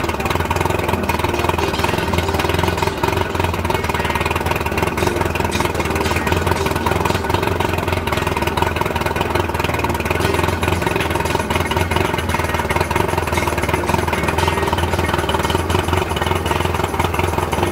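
Outboard motor idling steadily with its cowling off, a constant, even engine note with a rattly edge that does not rise or fall.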